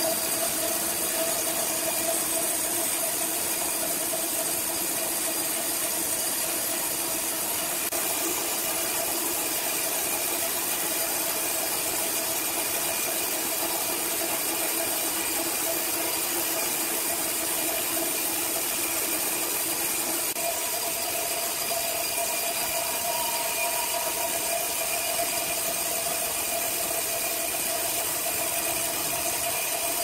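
Horizontal band sawmill running as its blade saws through a log: a steady mechanical hum from the electric motor and spinning band wheels, with a constant high hiss of the cut.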